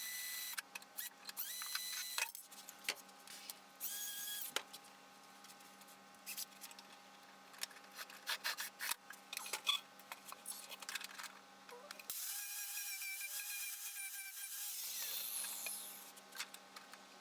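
Small power tool on the car body's sheet metal, run in repeated short bursts with a high whine, then held for about three seconds near the end and winding down.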